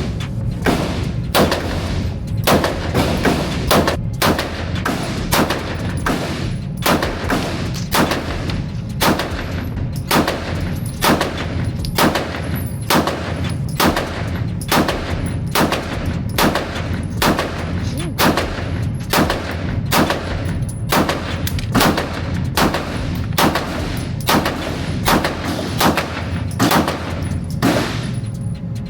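A long string of handgun shots at a steady pace, about one every half to one second, as a 32-round extended magazine is fired empty.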